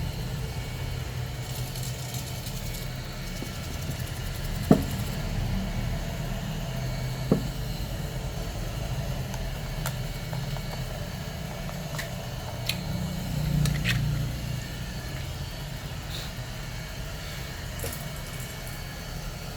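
Steady low mechanical hum, with a few short sharp clicks scattered through it.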